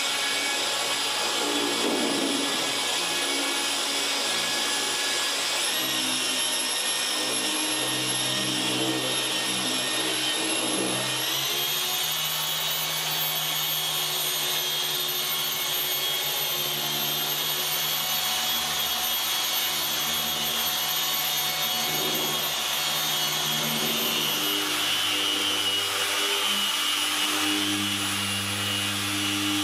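Rupes dual-action polisher running on car paint with a microfibre cutting pad during the cutting stage of a paint correction. Its steady motor whine steps up in pitch about six seconds in and again about eleven seconds in.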